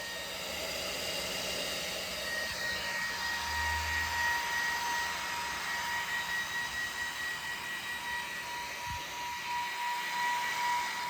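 Traxxas X-Maxx electric RC monster truck running: a steady high whine over a rushing hiss, like a jet about to take off.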